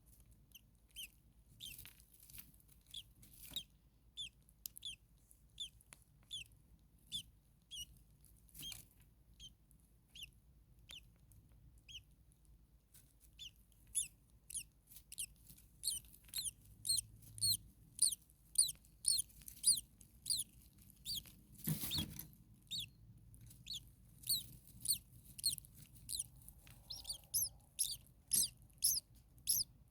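Starling chirping: a long run of short, sharp, downward-sliding calls, a few each second, growing louder about halfway through. A brief rustle or bump about two-thirds of the way in.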